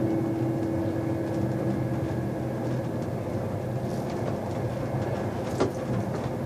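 Last acoustic guitar chord fading out, leaving the steady rumble of a moving passenger train carriage, with a single click near the end.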